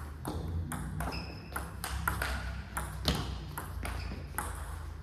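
Table tennis rally: the plastic ball clicking alternately off the table and the players' rubber-faced bats, about three hits a second, over a steady low hum.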